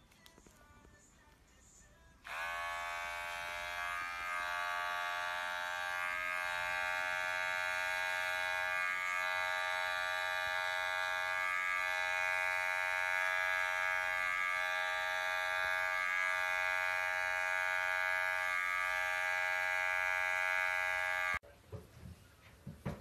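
Electric pet hair clippers switched on about two seconds in, buzzing steadily as they trim a cat's fur, then cut off suddenly near the end.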